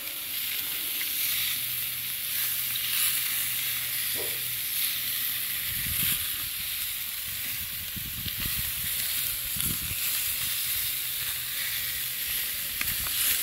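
Skirt steak and zucchini sizzling on GrillGrates over a hot charcoal Weber kettle: a steady hiss. From about halfway through, a low rumbling comes and goes under it.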